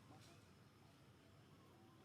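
Near silence: faint low background hum with one soft brief rustle shortly after the start.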